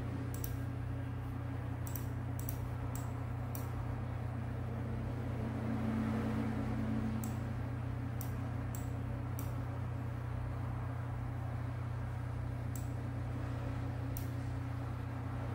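Steady low hum of running equipment, with a dozen or so short, sharp clicks scattered irregularly through it, in bunches early on, around eight to nine seconds, and near the end: computer mouse clicks while a 3D CT rendering is rotated on screen. A slightly higher steady tone in the hum swells briefly about six seconds in.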